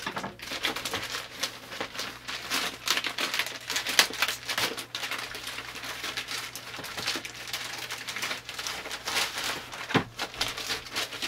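A mailer bag being opened and handled: irregular crinkling and rustling of bag material, with a few sharper crackles. Near the end the clear plastic wrap around a blister pack crinkles as it is pulled out.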